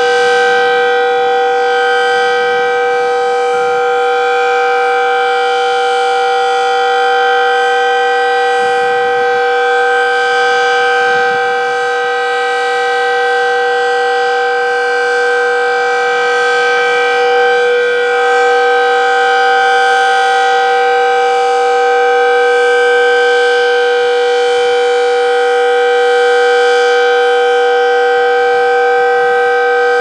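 Decot Red Arrow Model 12 mechanical outdoor warning siren sounding its steady alert signal during a test: a loud, held tone made of several pitches at once, with no rise or fall in pitch.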